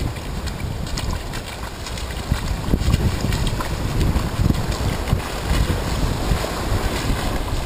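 Wind buffeting the microphone over the wash of small surf waves breaking and running up the beach.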